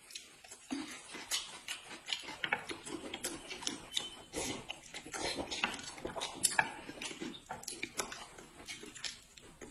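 Close-up eating sounds: noodles slurped and food chewed, with many short wet mouth clicks and smacks coming irregularly, several a second.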